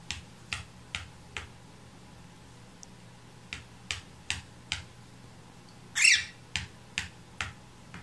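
A pet parakeet headbanging, knocking its beak against something in runs of four soft taps, about two or three a second. About six seconds in, a short, louder bird squawk.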